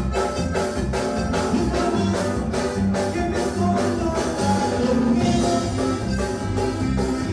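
Live band playing Latin dance music, with electronic keyboards and a drum kit keeping a quick, steady beat.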